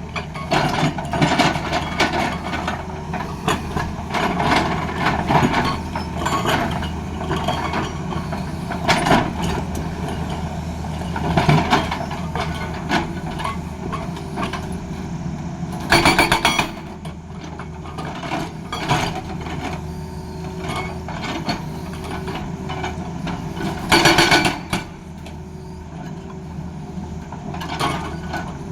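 Tata Hitachi excavator's diesel engine running steadily, with irregular metal clanks and knocks. A little past halfway, and again near the end, come two short, loud bursts of a hydraulic breaker hammering.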